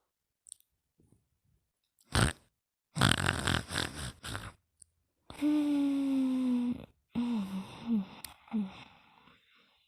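Very slow snoring: a long rasping breath, then a drawn-out breath carrying a steady low whistling tone, followed by three short squeaky notes that drop in pitch.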